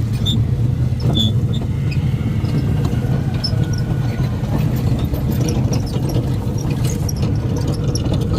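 John Deere X350 lawn tractor engine running steadily as it tows a train of carts, with scattered light clicks and rattles from the hitches and carts.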